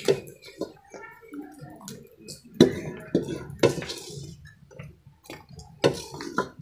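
A metal ladle scraping and knocking inside a metal cooking pot, in a string of sharp, irregular clanks.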